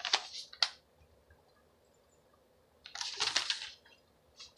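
Sheets of drawing paper rustling and crinkling as they are handled, in short bursts: one at the start, another about three seconds in, and a brief one near the end.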